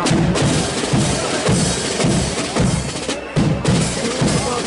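Marching flute band playing, its bass drum and snare drums beating a steady march rhythm under the tune.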